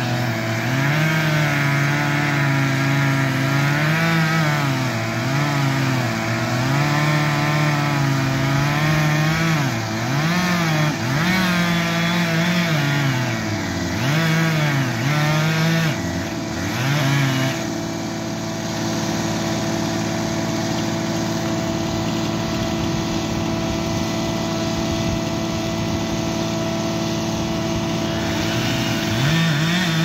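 Chainsaw cutting at the base of a standing tree trunk, its engine pitch rising and dipping again and again as the bar bites into the wood. It stops a little over halfway through. The steady drone of a large diesel logging machine's engine runs underneath throughout.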